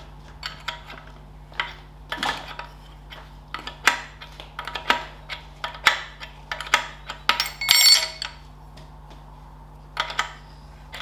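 Open-ended spanner clinking on the centre bolt of a Ferguson TED20 oil filter canister as the bolt is tightened a short turn at a time, the spanner lifted off and refitted between strokes. Irregular metallic clinks, with a longer, louder rattle about eight seconds in.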